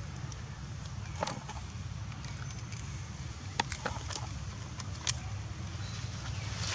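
A steady low rumble with a few short, sharp clicks scattered through it, the loudest about three and a half and five seconds in.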